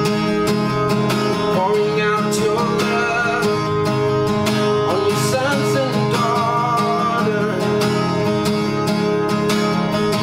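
Steel-string acoustic guitar strummed steadily in a slow worship-song accompaniment. A single voice sings a wordless melody over it from about two to seven seconds in.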